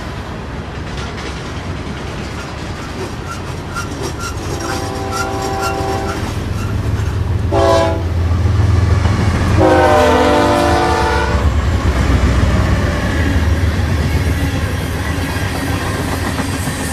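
Freight train rumbling and clattering along the rails while a grade-crossing bell rings about twice a second, then a diesel locomotive's air horn sounds a long blast, a short one and another long one.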